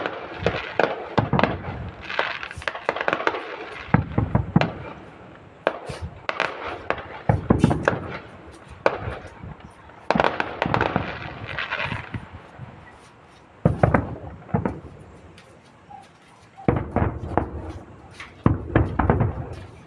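Fireworks display: aerial shells bursting in a rapid run of bangs and crackles that come in waves, with a brief lull about three-quarters of the way through.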